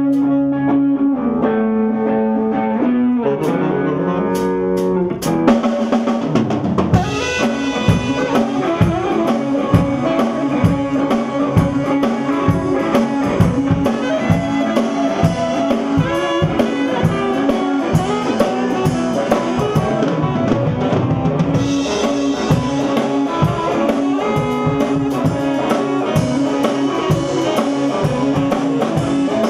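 Full-band music in a soul and funk vein: held chords for the first few seconds, then a drum kit comes in about five seconds in with a steady beat under guitar and the rest of the band.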